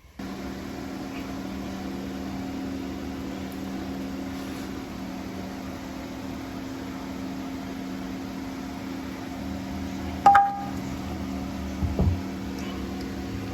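A steady mechanical hum, with a sharp metallic clink that rings briefly about ten seconds in and a dull thump near the end.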